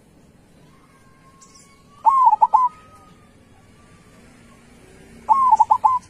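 Zebra dove (perkutut) cooing: two short bursts of rapid, clipped coo notes, about three seconds apart.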